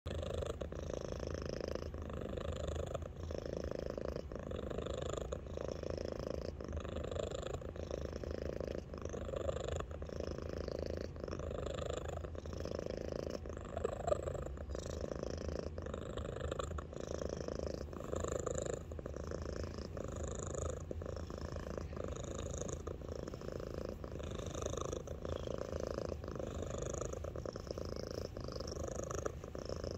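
A small domestic cat purring loudly and continuously, the purr swelling and easing in a steady rhythm with each breath.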